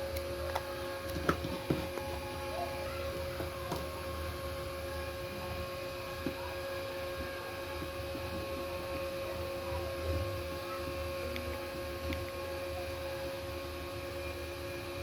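Steady electrical hum made of several held tones over a low rumble, with a few light clicks and taps about a second and a half in.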